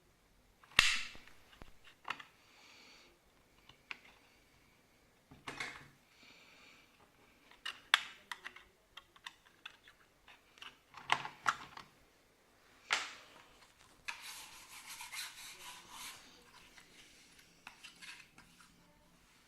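Small clicks, taps and scrapes of hard plastic and metal as a laptop is worked on by hand during a hard drive swap, with a longer rattling scrape lasting about two seconds near the end.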